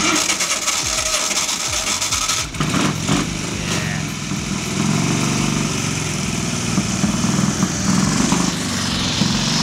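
Vintage Morgan three-wheeler's exposed front-mounted V-twin engine running loud and being revved, the revs rising and falling unevenly from a few seconds in.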